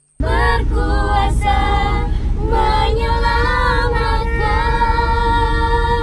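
A group of children and women singing together inside a moving van, over the steady low rumble of the vehicle. The singing starts abruptly a moment in and ends on a long held note.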